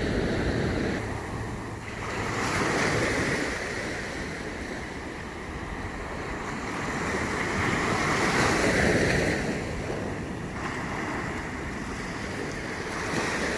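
Ocean surf breaking and washing up a sandy beach, swelling louder twice and fading between, with some wind on the microphone.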